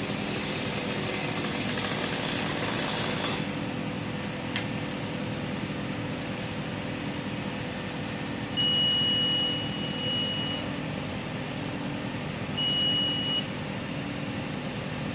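An aerial lift's engine running steadily, with a hiss over the first few seconds. Past the middle a high steady beep sounds twice, first for about two seconds, then for under a second.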